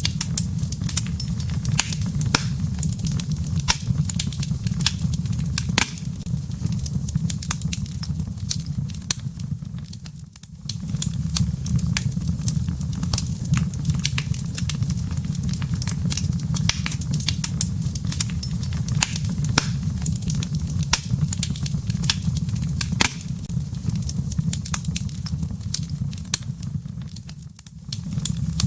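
Wood logs burning in a fireplace: a steady low rumble of flame with frequent sharp, irregular crackles and pops. The rumble briefly fades twice.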